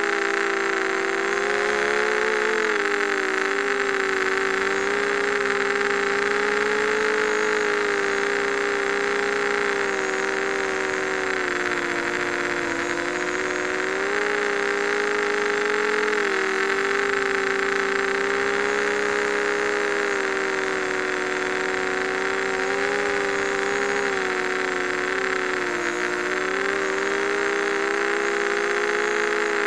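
ZMR 250 racing quadcopter's brushless motors and propellers whining, heard close up from the craft itself. The pitch wavers and dips several times as the throttle changes.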